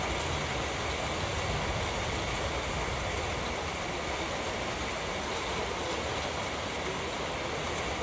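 Rain falling steadily: an even hiss with a low rumble underneath.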